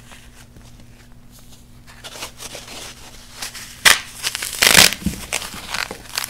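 Hands crumbling baked blocks of recycled paste: soft, faint crumbling at first, then a sharp snap about four seconds in as a block is broken in two, followed by gritty crunching and crumbling.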